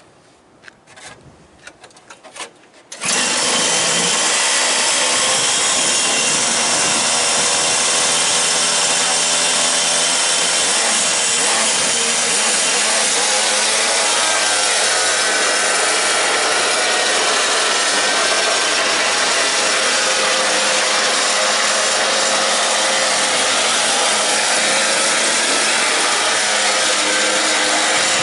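Small gas engine of a quarter-scale RC pickup truck, which comes in suddenly about three seconds in after a few clicks, then runs with a loud buzz, its pitch rising and falling with the throttle as the truck drives.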